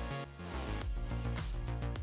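Background music with a steady beat, which thins briefly near the start and comes back fuller about half a second in.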